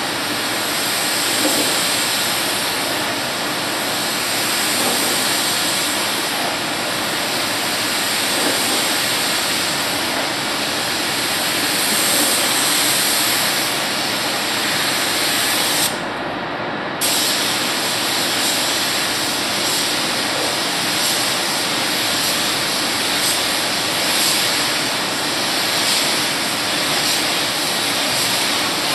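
Gravity-feed paint spray gun hissing steadily as compressed air atomises paint onto a car body. The hiss stops for about a second midway, then resumes.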